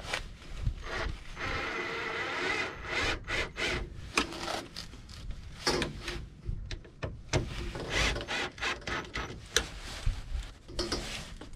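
Handling noise while fastening a diesel heater's air intake hose: irregular rubbing and scraping with scattered clicks and knocks, and a sustained rasp about a second in.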